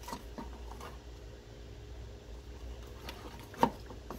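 Long kitchen knife slicing down through a rack of smoked pork spare ribs onto a wooden cutting board: faint cutting sounds with a few small clicks, one sharper click about three and a half seconds in, over a steady low hum.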